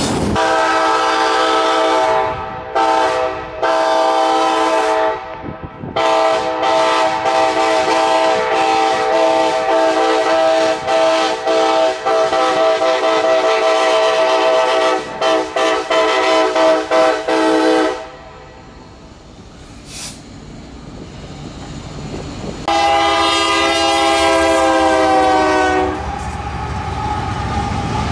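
Diesel freight locomotive air horns sounding a multi-note chord in long and short blasts: a long blast broken by brief gaps, a sustained blast, then several short ones. After a quieter stretch of rolling train rumble, a different horn gives another long blast, followed by the rumble of a locomotive passing close by.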